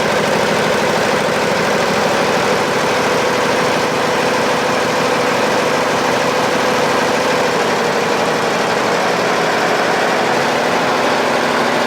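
Embroidery machine stitching steadily, its needle running in a fast, even rhythm.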